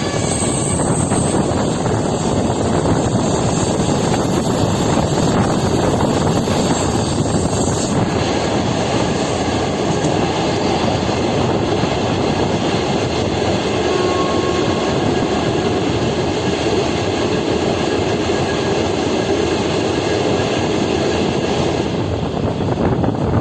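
Train running along the track: a steady, loud rumble of wheels on rails.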